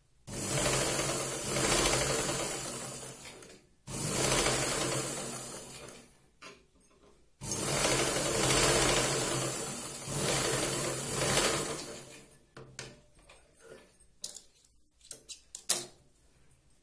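Domestic sewing machine running in three runs of straight stitching, the second one short, as it sews down a folded seam edge; it stops about twelve seconds in and a few light clicks follow.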